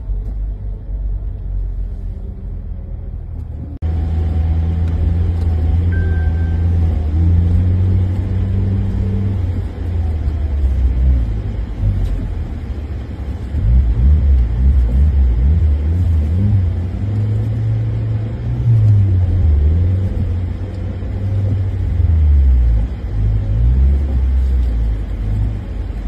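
Car engine and low road rumble heard inside the cabin while driving through deep snow. The engine note rises and falls as it revs, and the sound jumps suddenly louder about four seconds in.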